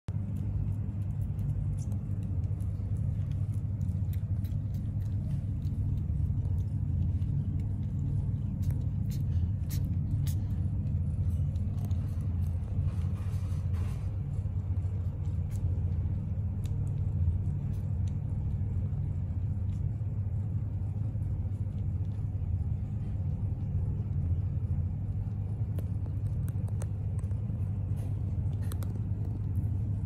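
British Shorthair mother cat purring steadily in a continuous low rumble as her newborn kittens nurse, with faint scattered small clicks from the kittens suckling.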